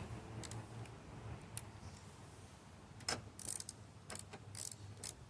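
Irregular small metallic clicks and ticks from a spark plug socket and ratchet as a new spark plug is turned into a lawn mower engine, over a low steady hum.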